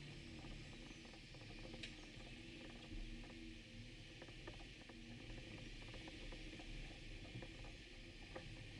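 Near silence with faint scattered clicks and a low hum, one sharper tick about two seconds in.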